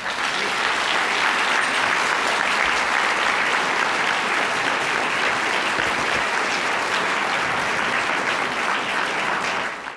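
Audience applauding steadily; the applause drops away sharply near the end.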